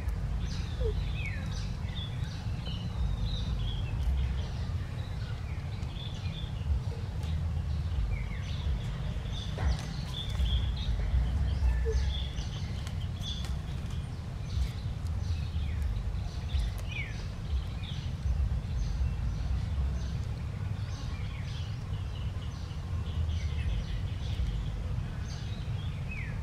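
A steady low rumble, like wind on the microphone, under many short, high chirps of birds calling.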